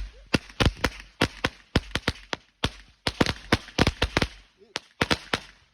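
A string of firecrackers going off: a rapid, irregular run of sharp bangs, about four or five a second.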